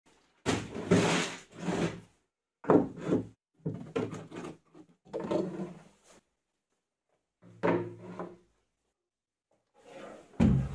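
About six separate short wooden scraping and sliding sounds, with silent gaps between them, as things are handled and moved on plywood storage shelves.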